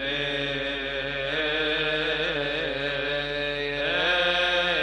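Deacons' choir of men's voices chanting a Coptic liturgical hymn in unison, with long melismatic notes that waver and glide. The line rises in pitch about four seconds in.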